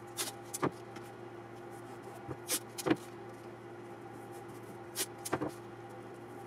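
Blue painter's tape pulled off the roll and torn, with crinkling of tracing paper as the strips are pressed down: three short clusters of rips and rustles a couple of seconds apart, over a steady low hum.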